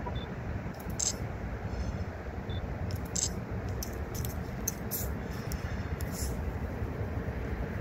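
EMD diesel locomotives of a CN yard set rumbling steadily as they roll slowly through the yard, with a few brief high-pitched squeaks over the rumble.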